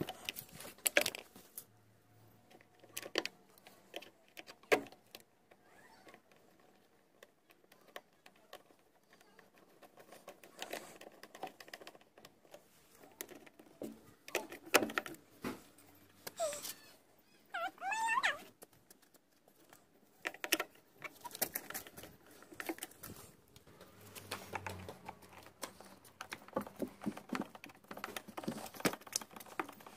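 Screwdriver working at the sealed plastic tub of a washing machine, prying at the glued seam between its two halves: irregular sharp clicks and knocks of metal on hard plastic, with quieter scraping in between. About halfway through there is a brief squeaky glide.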